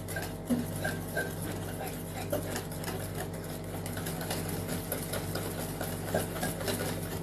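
A spoon stirring thick rice pudding in a pot, with soft irregular scrapes and small clicks against the pot, over a steady low hum.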